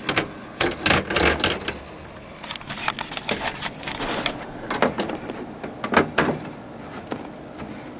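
Computer case side panel being handled and fitted back onto the case: a series of irregular clicks, knocks and short scrapes.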